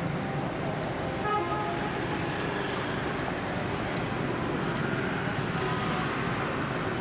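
Steady street traffic noise from passing vehicles, with one short horn beep about a second and a half in.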